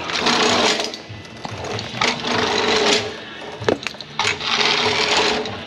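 A power tool running in three bursts of about a second each, with a rapid mechanical rattle and a steady whine.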